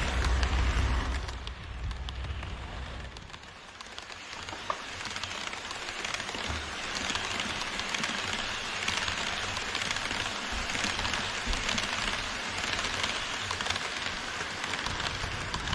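HO scale model train coaches rolling past close by on KATO Unitrack, a steady rattling hiss of small metal wheels on the rails with scattered clicks. A low rumble in the first few seconds fades away, and the rattle grows louder again later on.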